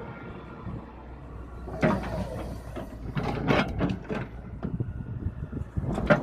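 Tata Hitachi Zaxis 210LCH excavator's diesel engine running, with metallic clanking and scraping from the heavy steel track chain and undercarriage as the track is being fitted. The clanks come in clusters about two seconds in, again from three to four seconds, and loudest just at the end.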